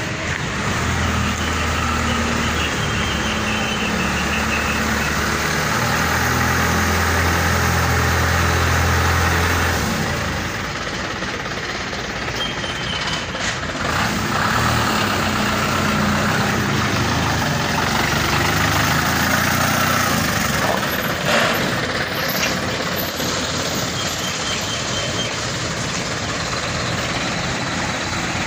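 Diesel engine of a light flatbed truck running as the truck moves about slowly. A strong low engine note holds for about the first ten seconds, then eases into a quieter, more even rumble.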